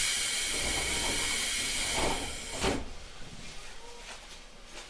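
Loud hiss of compressed air let out by an Odakyu 1000 series train's pneumatic equipment. It cuts in suddenly, runs about three seconds and ends with a thump, leaving the car's low background.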